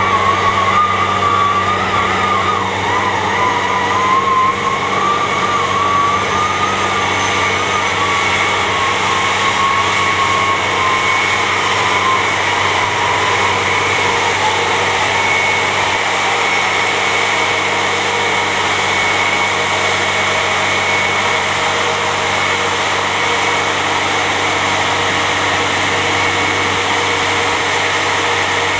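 Engine of a large tracked snow vehicle running steadily under load as it crawls through deep snow. A wavering high whine rides over it early on and fades out about halfway through.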